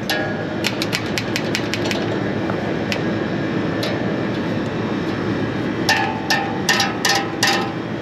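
Metal clicking and clinking as the broken condenser fan's bent blades and loose hub are handled with an adjustable wrench: a quick run of light ticks in the first two seconds, then a louder string of ringing metal knocks near the end, over a steady background rush.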